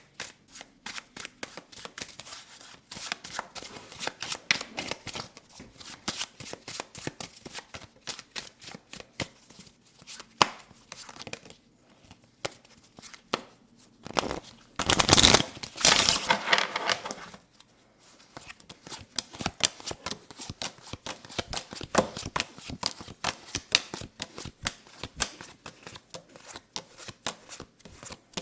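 Playing cards being handled: a steady run of quick card clicks and flicks, with a louder, denser burst of shuffling about halfway through that lasts around three seconds.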